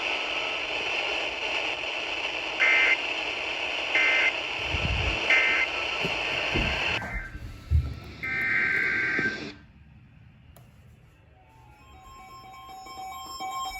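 Weather radio hiss broken by three short screeching digital data bursts about a second and a half apart, the EAS end-of-message code closing the warning. A longer burst follows, then the hiss cuts off suddenly and it goes quiet. Near the end, electronic beeping tones begin.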